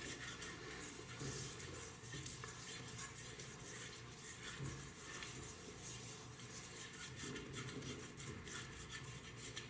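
Silicone pastry brush rubbing olive oil over the surface of a frying pan, faint soft brushing strokes with small irregular scrapes, as the pan is greased before the pancake batter goes in.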